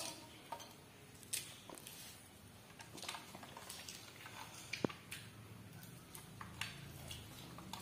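Faint handling and eating noises of fleshy citrus pulp being pulled apart by hand and chewed: scattered soft clicks and squishes over quiet room tone, with one sharper click about halfway through.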